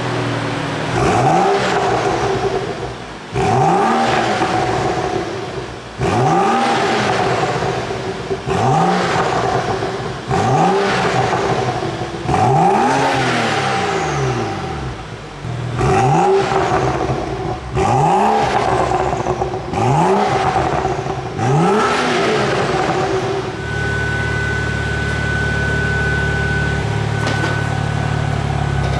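BMW 435i's N55 turbocharged straight-six, breathing through an HJS downpipe and an Akrapovic Evolution stainless-steel exhaust, free-revved in a string of about ten quick blips, each rising and falling, one held a little longer about halfway through. It settles to a steady idle a few seconds before the end.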